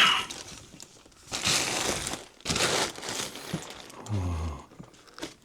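Plastic packaging bag crinkling and rustling in several bursts about a second long, as a heavy 3D printer is worked out of the bag.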